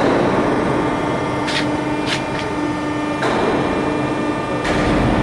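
Steady hum and rumble of running machinery, with a few sharp clicks near the middle. The low rumble grows stronger near the end.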